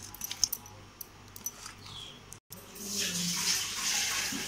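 Wet squishing and sharp clicks as hands rub turmeric into raw carp pieces in a pot. After a short break, a steady hiss rises and holds for about a second and a half near the end.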